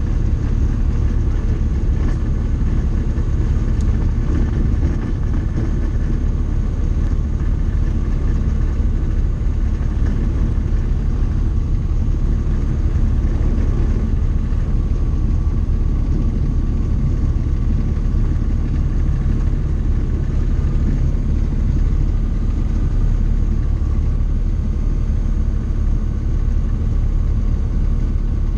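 Tecnam light aircraft's propeller engine running steadily at low power as the plane rolls along the runway, heard from inside the cockpit as a deep, even drone.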